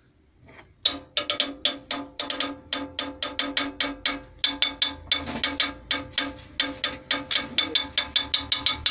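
Upbeat background music of rapid, evenly spaced percussive notes, starting about a second in after a short silence.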